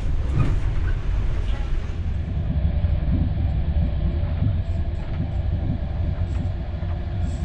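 Steady running noise of a passenger train coach in motion, heard inside a compartment: a deep wheel-and-track rumble with a faint steady hum over it.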